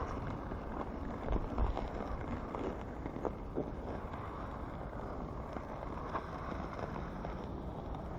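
Wind buffeting the microphone in a steady low rumble, with scattered scrapes and clicks of ice skate blades gliding on lake ice.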